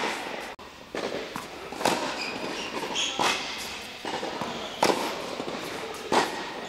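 Tennis ball being struck by a racket on forehand swings, a sharp pop every second and a half or so, with lighter knocks of the ball bouncing between, echoing in an indoor court hall.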